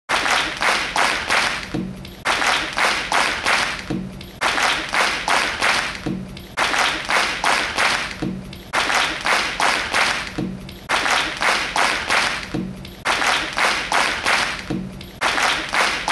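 A fast, regular percussive beat of sharp strokes, about four a second, in repeating phrases of about two seconds. Each phrase closes with a short low pitched note.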